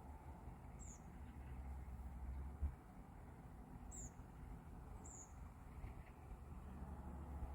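Quiet outdoor background with a low steady rumble, broken by three short, high, falling bird chirps: one about a second in, then two more about a second apart near the middle. A brief knock sounds about two and a half seconds in.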